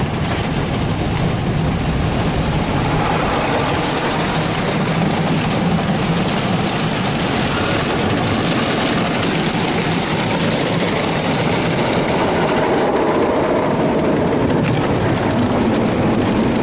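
Ryko Softgloss Maxx car wash's spinning cloth brushes scrubbing the truck amid water spray, heard from inside the cab as a loud, steady rushing noise during the brush wash cycle.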